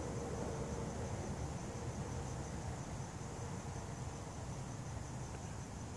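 Crickets chirping in a steady, continuous high trill, over a faint low rumble.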